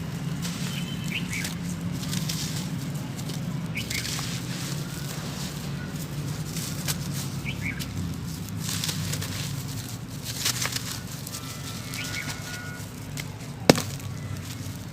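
Dry sand-cement chunks crumbling and crushing into grit in irregular crackly bursts, with one sharp snap near the end.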